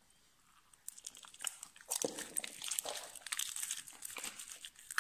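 Slime being mixed as thickener is worked in: a dense run of sticky clicks and crackles that starts about a second in.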